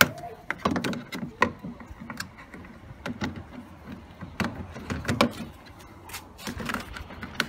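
Irregular plastic clicks, knocks and rattles as hands work the washing machine's drain pump loose from its plastic housing.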